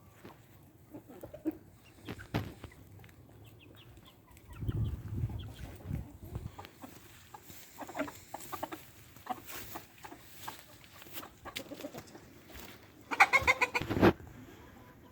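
Chickens clucking softly among scattered small clicks, with a low rumble about five seconds in. Near the end comes a loud, quick run of squawking calls.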